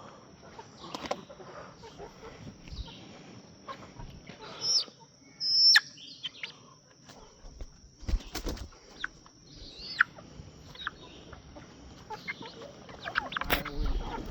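Chickens clucking, with two loud, sharp, high calls about five seconds in, and wings flapping amid a few heavier knocks as a hen is chased and handled.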